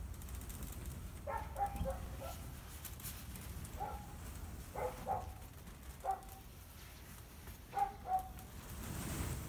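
A dog barking in short bursts, about eight barks in small groups, over a steady low rumble.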